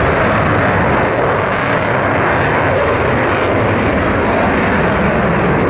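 Loud, steady jet noise from a McDonnell Douglas F-15's twin afterburning turbofan engines as the jet climbs and banks overhead.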